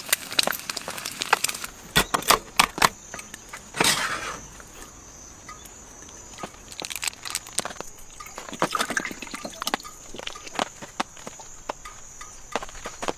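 Irregular sharp clicks and knocks, densest in the first four seconds and then sparser, with a steady high-pitched tone setting in about three seconds in.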